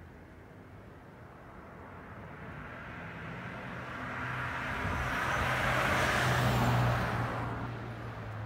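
Boeing 737-700 jet airliner passing overhead in its climb after takeoff, its CFM56-7B turbofans giving a rushing jet noise with a low hum. It swells steadily, is loudest about seven seconds in, then begins to fade.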